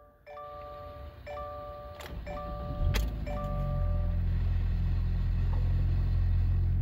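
A car's warning chime repeating about once a second, then the 2025 Subaru Outback's 2.5-litre flat-four cranks and catches about three seconds in and settles into a steady idle. This is its first start after an oil and filter change, with no oil light coming on.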